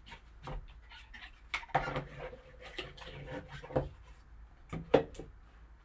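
Hands handling trading-card packaging: a run of light clicks, taps and rustles, with a sharper click about five seconds in.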